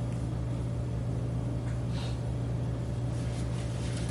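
Steady low hum of the classroom's room tone, with a few faint light ticks.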